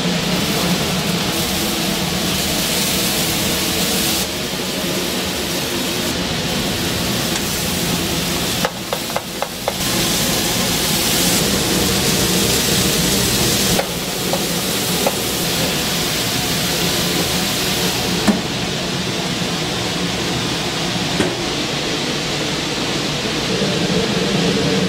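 Food sizzling steadily as it cooks, with a quick run of clicks about nine seconds in and a single click later, over a steady low hum.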